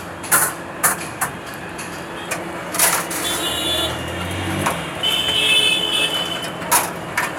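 Busy street ambience with traffic running and voices in the background, broken by several sharp clicks and knocks, about five in all, as metal skewers of marinated chicken are handled at a tandoor.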